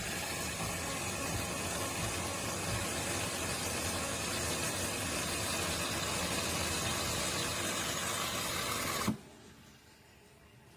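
De'Longhi Rivelia automatic espresso machine frothing milk: a steady steam hiss with a machine hum that cuts off suddenly about nine seconds in.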